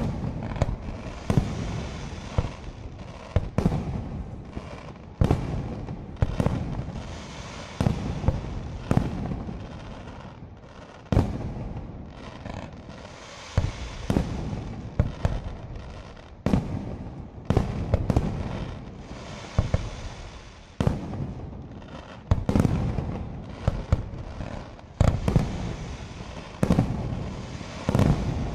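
Aerial firework shells bursting one after another: sharp booms about one to two a second, each trailing off in a rumble, coming thicker in the last few seconds.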